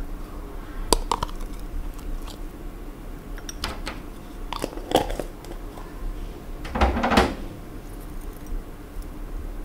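Metal spoon clinking and scraping against a small ceramic bowl as fermented shrimp paste is scooped into it, with a louder clatter about seven seconds in as chopped chilies are tipped into the bowl from a small cup.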